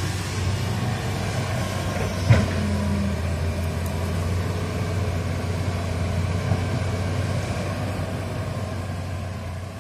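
Hitachi crawler excavator's diesel engine running steadily, with one sharp knock about two seconds in. The sound fades near the end.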